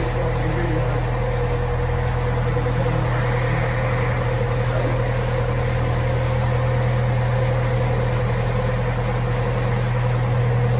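Narrowboat's diesel engine running steadily at cruising speed, a constant low hum with a steady higher tone over it, inside a brick canal tunnel.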